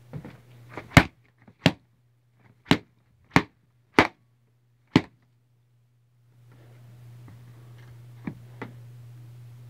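Six sharp whacks in about four seconds, as of someone swatting at a yellow jacket wasp, over a steady low hum. A steady hiss comes up after about six seconds, with two faint clicks near the end.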